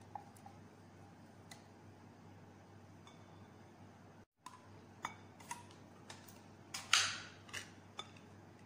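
Scattered clinks and knocks of a silicone spatula and containers against a glass mixing bowl. They are mostly in the second half, with one louder short scraping burst near the end.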